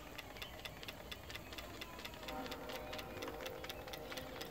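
Stuart Williamson model steam engine running on live steam, with a quick, even ticking from the eccentric rod on its eccentric sheave. A faint steady pitched tone joins about two seconds in.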